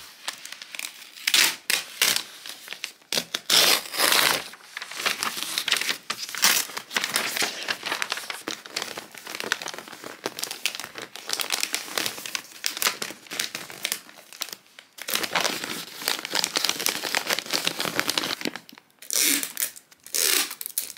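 Glossy wrapping paper crinkling and rustling in irregular bursts as it is folded and creased by hand around a present.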